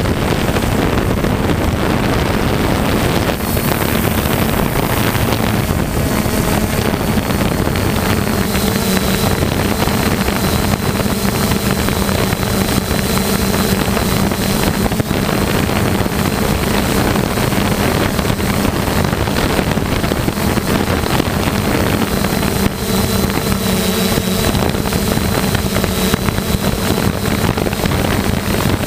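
3DR Solo quadcopter's electric motors and propellers running with a steady hum, heard from the camera mounted on the drone, with wind rushing over the microphone.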